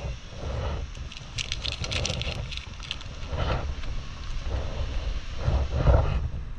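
Steady low vehicle rumble with wind noise on the microphone, and a quick run of rattling clicks about a second and a half in.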